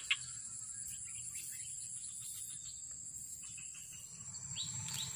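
Steady, high-pitched buzz of insects, with a couple of faint clicks near the start.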